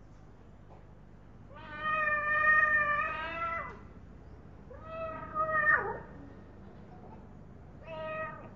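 Recorded cat meowing three times, played back over a speaker. The first meow is long, about two seconds, the second falls in pitch at its end, and the third is short.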